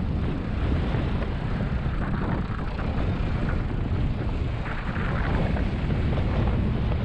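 Wind buffeting an action camera's microphone: a steady rushing noise, heaviest in the low end, with small gusty swells.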